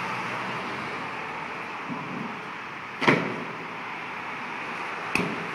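Stunt scooter knocking on concrete: one loud knock about three seconds in and a sharper clack near the end, over a steady background hiss.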